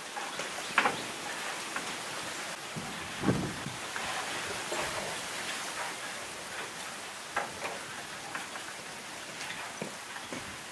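A steady hiss, with a few soft knocks and footfalls as a woven bamboo basket is picked up and slung onto the back, the loudest a dull thump about three seconds in.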